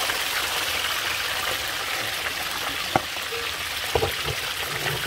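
Whole mojarra fish deep-frying in hot oil in a large round steel pan, the oil sizzling steadily. Two sharp clicks come about three and four seconds in.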